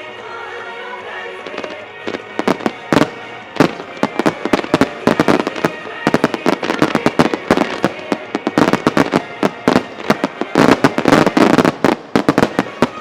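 Starmine fireworks barrage: shell bursts and crackling bangs, few at first, then coming thick and fast from about two seconds in, over background music.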